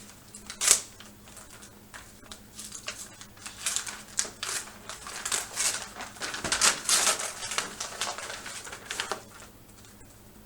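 Paper rustling and crinkling as a sealed bid envelope is opened and its pages are handled, in irregular crackles with a sharp rip about a second in.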